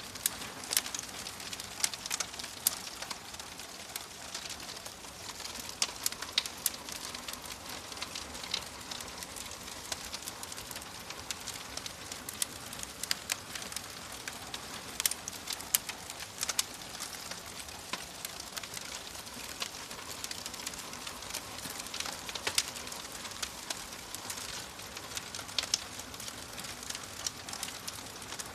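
Wood fire burning in a fireplace: a steady hiss with frequent sharp, irregular crackles and pops.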